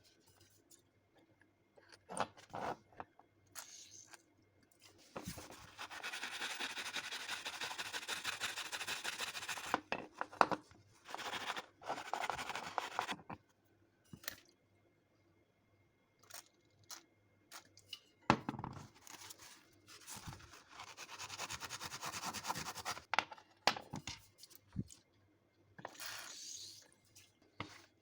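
Rapid scratchy scrubbing in several stretches of a few seconds each, with scattered clicks and knocks of parts being handled in between.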